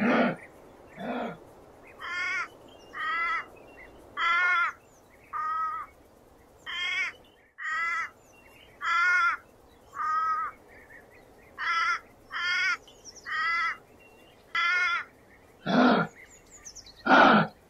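A long series of short, pitched animal calls, about one a second. The fullest and loudest calls come at the start and near the end.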